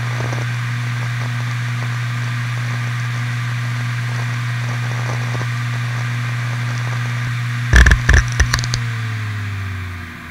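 Toshiba MK1002TSKB 7200 rpm hard drive spinning with a steady hum and faint seek chatter during file transfer. Near the end comes a quick burst of loud clicks, and then the hum starts falling in pitch as the platters spin down.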